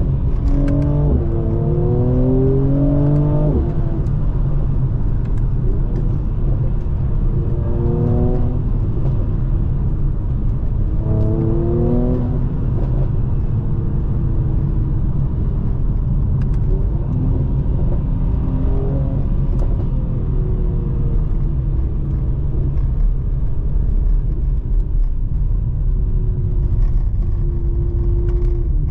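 2020 Mercedes-AMG C43's 3.0-litre twin-turbo V6 pulling under acceleration, its note rising with the revs in three pulls in the first half, then easing off to a steadier, falling note, over a constant low road rumble.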